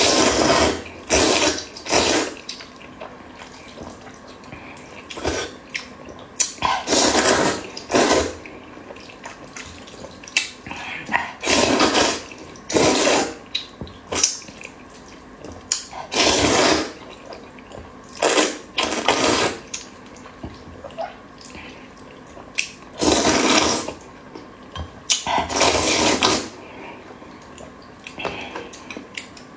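Close-miked eating sounds: loud slurps of zhajiang noodles and wet chewing, coming in irregular bursts of about half a second to a second each, with short quieter pauses between.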